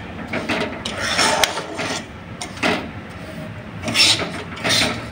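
A spatula scraping and stirring broken wheat (dalia) around a nonstick kadai, a run of irregular raspy scrapes. The grains are being roasted in ghee.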